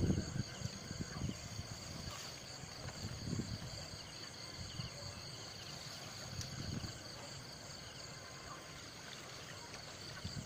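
Steady chorus of night insects, high-pitched chirping with a regular pulse, with a few faint low rustles and thumps.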